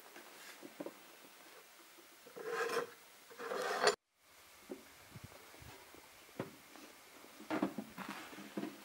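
Short bursts of wood scraping and rubbing: two just before a sudden cut-off, then a few light knocks and more scraping near the end.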